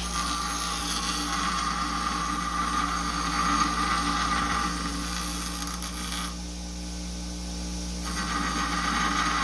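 MIG welder arc crackling as a bead is laid, over the welding machine's steady hum. The crackle stops for a second or two about six seconds in, then starts again.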